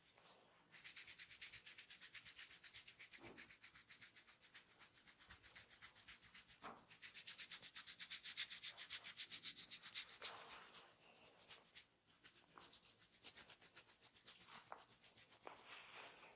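Massage rubbing: hands moving quickly back and forth, about six scratchy strokes a second, in three runs broken by short pauses.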